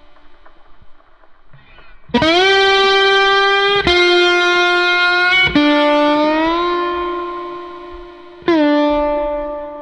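Background music: a distorted electric guitar plays long held notes that ring and slowly fade. New notes are struck about two, four, five and a half and eight and a half seconds in, and one note slides up in pitch around six seconds.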